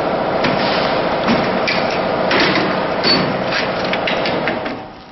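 Metal clunks and clicks from the clamp jaws and levers of a band saw blade flash butt-welding machine being worked by hand, about seven sharp knocks in all. A steady machine hum runs underneath and drops away near the end.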